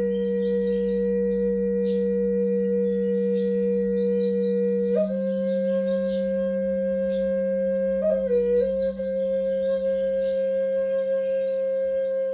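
A flute holding long, sustained notes, stepping up to a higher note about five seconds in and wavering briefly near eight seconds, over a steady low drone. Birds chirp throughout.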